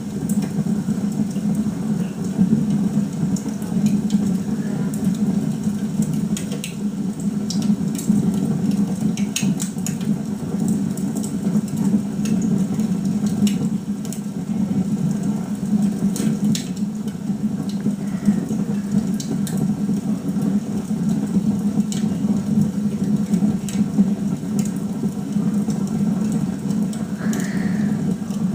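Log fire crackling, with irregular sharp pops and snaps over a steady low rumble, heard through a television's speaker.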